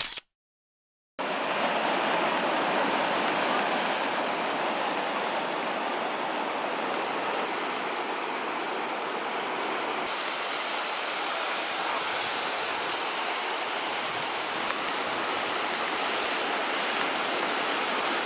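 Steady rushing roar of a waterfall pouring onto rocks, starting about a second in after a brief silence.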